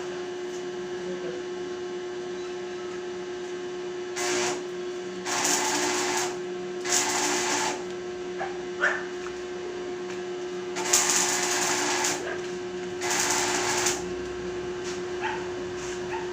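Arc welding on a steel gate: five short bursts of crackling sizzle, each about half a second to a second and a half long, as short welds are laid, over the steady hum of the welding machine.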